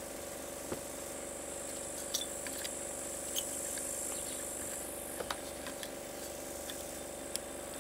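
Sparse light clicks and taps as the plastic and metal parts of a partly dismantled chainsaw are handled, over a steady low hum and a high insect buzz that stops about five seconds in.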